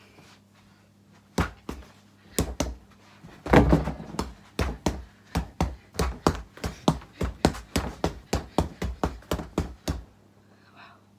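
Bare fists punching a Gallant freestanding punch bag: a few single thuds, the loudest cluster about four seconds in, then a fast, even run of about three or four punches a second that stops about ten seconds in.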